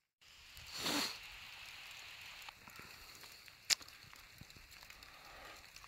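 Light, steady rain falling on a wet canvas army tent, a faint even patter with scattered drops ticking and one sharper tick a little past halfway. A brief rushing swell about a second in.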